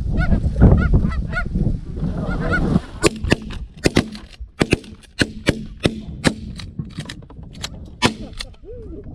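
Rapid Canada goose honking for the first few seconds, then a volley of shotgun blasts from several hunters firing at geese overhead: more than a dozen shots, a fraction of a second apart, over about six seconds. One more goose honk sounds near the end.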